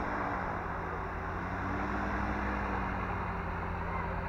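Light low-wing aircraft's piston engine and propeller running steadily at low power as the plane taxis across grass.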